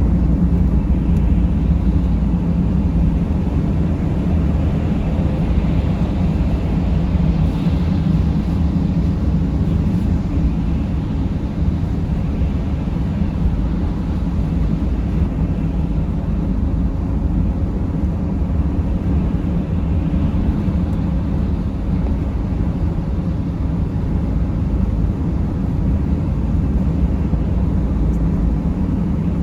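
Steady low rumble of a Mercedes Sprinter van driving: engine and road noise holding even throughout.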